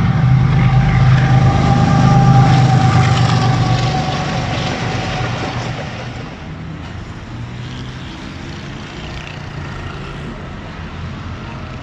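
GE diesel-electric locomotive hauling a passenger train past: a deep engine drone with a steady high whine, loudest about two seconds in and fading away by about six seconds. After that only a quieter steady outdoor background remains.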